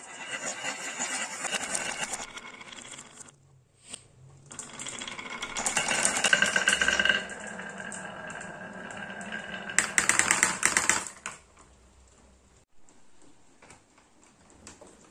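Marbles rolling down a carved wavy HABA wooden slope, a rapid clicking clatter that comes in three bursts. The last and sharpest burst, a little before the middle of the second half, is the marbles clattering into the plastic bed of a toy dump truck.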